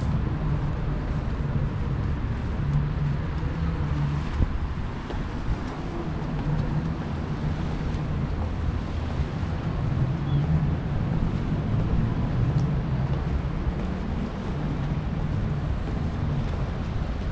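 City traffic ambience: a steady low engine rumble that swells and eases over a constant wash of road noise.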